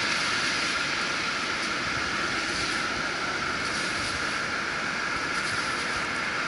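Steady wash of surf and wind noise on an open beach, even and unbroken throughout.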